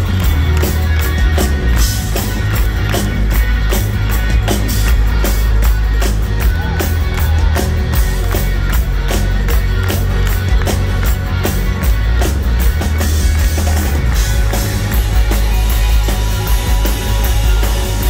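Live rock band playing loud in an arena: electric guitar lead over drums, bass and keyboards, with a heavy, boomy low end.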